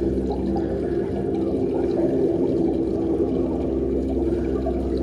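Room tone of a large indoor arena: a steady low hum with an even background rumble.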